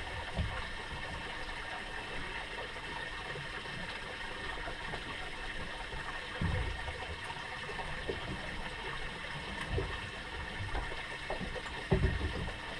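Water against the hull of a small drifting fishing boat, a steady watery hiss with a few dull low knocks, the loudest near the end.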